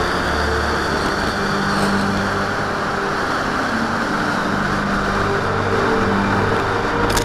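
Steady rushing wind over the microphone of a camera riding on an RC model plane flying low over snow. A faint high whine fades out in the first two seconds.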